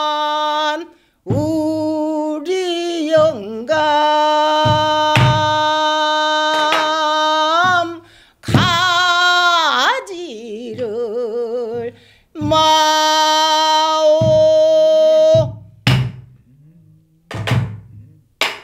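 A woman singing pansori in long, held notes with a wide, wavering vibrato, while buk drum strokes thud underneath. The singing stops about fifteen seconds in, and a few last drum strokes follow.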